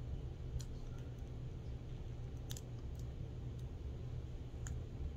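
A few small, scattered clicks as fingers work at a lip gloss and its packaging, trying to get it open, over a steady low background hum.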